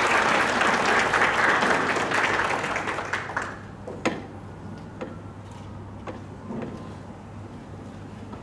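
Audience applauding, dying away about three seconds in, followed by a few scattered knocks.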